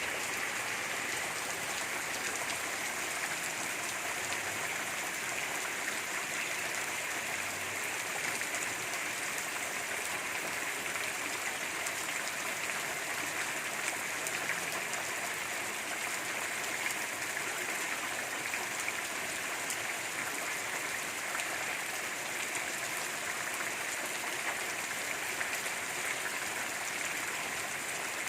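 Steady rain falling, an even hiss of rain that holds unchanged throughout.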